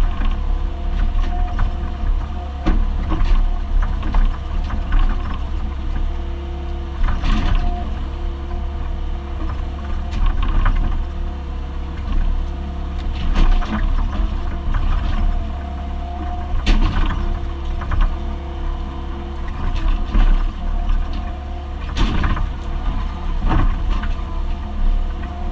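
Compact excavator's diesel engine running steadily under load, heard from inside the cab, with a hydraulic whine that rises and falls as the boom and bucket work. Sharp knocks and cracks come every few seconds as the bucket rips at a tree stump and its roots.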